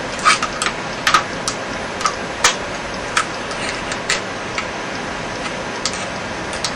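Trigger assembly of a Pardner Pump 12-gauge pump shotgun being slid back into the receiver: irregular light metallic clicks and taps, coming more often in the first few seconds and thinning out after.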